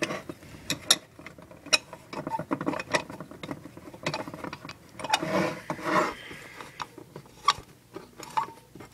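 Screw key being turned in the keyhole of an antique cast-iron screw-key padlock, making irregular metallic clicks and scraping, busiest about five to six seconds in.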